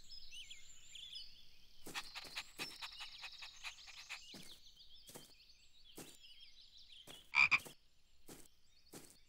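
Frogs croaking in short, clicky croaks over a steady high chirring, with one louder call about seven and a half seconds in.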